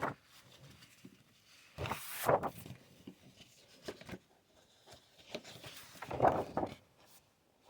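Sheets of patterned scrapbook paper rustling as they are handled, in two short bursts about two seconds and six seconds in.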